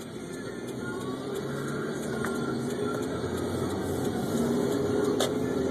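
Car engine and road noise heard from inside the cabin, growing steadily louder as the car accelerates away. One sharp click comes near the end.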